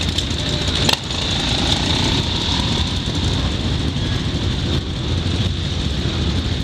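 Quad bike engines idling, a steady low rumble with hiss, with a sharp click about a second in and a faint rising rev from another engine shortly after.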